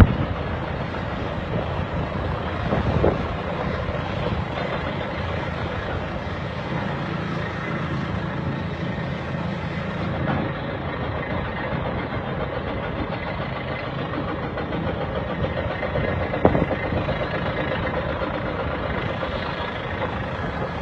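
Heavy construction machinery engine running steadily, with a couple of short knocks about three seconds in and again near the end.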